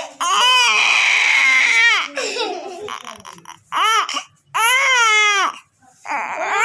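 A small child crying: four loud, pitched wails that rise and fall, the first long, with short breaks between them.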